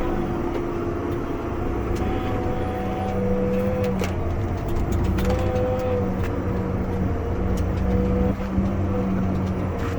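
Tractor engine running steadily as it pulls a hay stacker wagon across the field. Steady whining tones shift slightly in pitch, with occasional short clicks and rattles.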